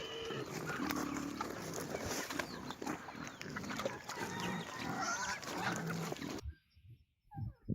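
Farmyard sounds: scattered short animal calls and knocks over steady outdoor noise, cutting off abruptly about six and a half seconds in.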